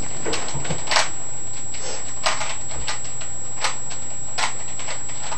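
Rubik's Cube being turned by hand during a solve: irregular plastic clicks and clacks of the layers snapping round, a few each second.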